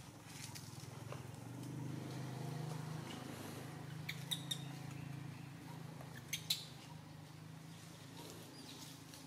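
Monkeys moving among tree branches: a few sharp clicks or twig snaps, two close together about four seconds in and two more about six seconds in, over a low steady hum.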